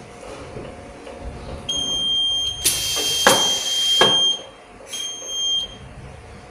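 EJH-14 conveyor metal detector's alarm buzzer sounding a steady high-pitched tone, once for about two and a half seconds and again briefly about a second later, signalling metal contamination detected in a soap bar. Midway through the first tone there is a loud burst of hissing noise with two sharp knocks.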